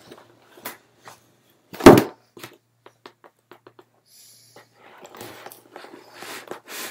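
A cardboard makeup box being handled and lifted out of a fabric gift basket: light clicks and rustling, with one loud thump about two seconds in.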